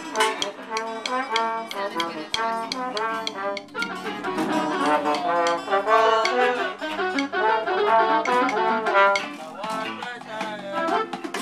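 Trombone playing a loose melody in an informal live jam, with sharp drumstick clicks through the first few seconds.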